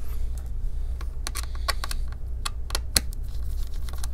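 Light, irregular clicks and taps as a small Torx T5 screwdriver and the tiny bottom-cover screws are handled against a laptop's underside, the sharpest click about three seconds in, over a steady low hum.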